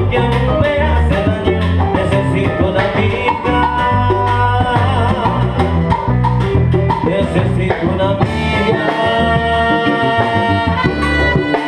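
Live salsa band playing, with singing over congas, drum kit, bass guitar and piano. Several long held notes ring out from about eight seconds in.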